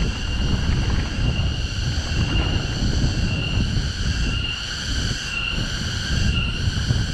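Wind buffeting the microphone and the rumble of a mountain bike rolling fast down a dirt trail. Over it runs a steady high buzz that swells about once a second.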